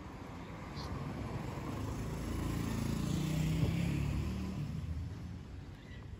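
A motor vehicle driving past, its engine hum swelling to a peak about three and a half seconds in, then fading away.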